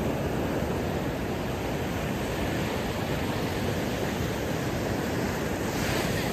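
Surf washing onto a sandy beach, a steady rushing noise of breaking waves.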